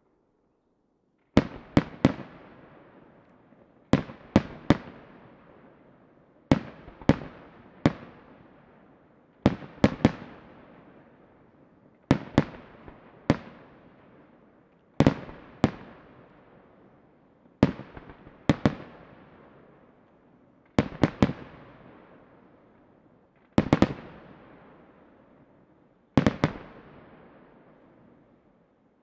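Aerial firework shells bursting in a display: after about a second and a half of silence, sharp bangs come in groups of two to four, a group about every two and a half seconds, each with a long echoing tail.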